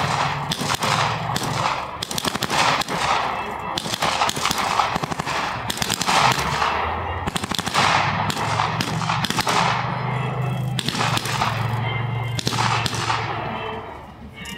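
Rapid blank-fire gunfire: overlapping bursts of machine-gun and rifle shots, with a vehicle engine running steadily underneath. The firing thins out near the end.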